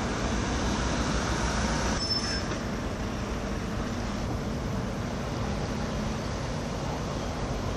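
Steady vehicle rumble with a faint low hum, and a brief high squeak about two seconds in.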